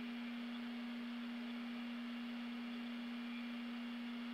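A single steady tone held at one pitch without change, over a faint hiss.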